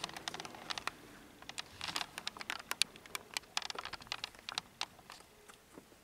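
Irregular sharp clicks and light knocks, several a second, with no music playing.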